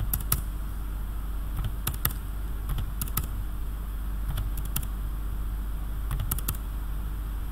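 Sharp clicks of a computer mouse and keys, mostly in quick pairs, a few times over, as stray line segments and anchor points are selected and deleted twice over. A steady low hum runs underneath.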